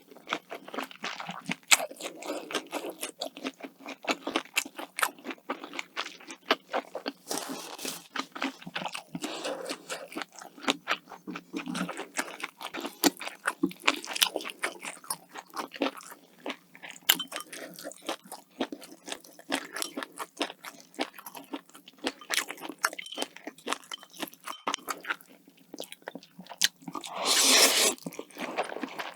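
Close-miked eating: a run of sharp crisp crunches and wet chewing from a person eating. Near the end comes one louder noisy sound lasting about a second.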